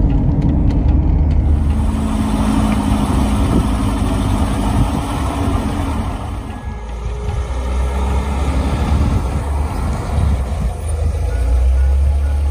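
A 1984 BMW 318i E30 running: its four-cylinder engine and road noise heard from inside the cabin while driving, then, about halfway, the car heard from outside as it comes along the road, with a deep low rumble near the end.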